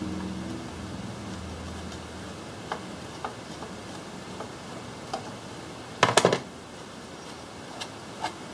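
Small metal clicks and scrapes of a screwdriver backing out the screws on the metal engine cover of a Wright gas-powered reciprocating saw. There is a louder short rattling clatter about six seconds in.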